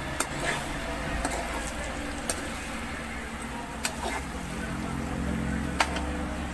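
Chicken pieces being stirred in a hot frying pan with garlic, onion and turmeric, over a steady sizzle. The utensil knocks against the pan about five times, with a low steady hum underneath.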